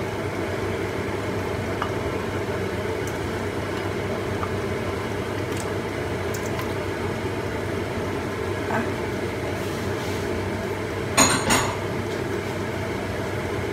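Wooden spatula scraping raw chicken gizzards and livers from a ceramic bowl into a wok, with a few light clicks and a short loud clatter of the bowl and spatula about 11 seconds in, over a steady hum.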